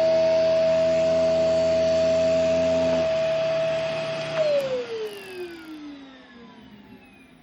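Vacuum cleaner running with a steady high whine over a low buzz; the buzz stops about three seconds in. About four seconds in the motor is switched off and its whine falls steadily in pitch and fades as it spins down.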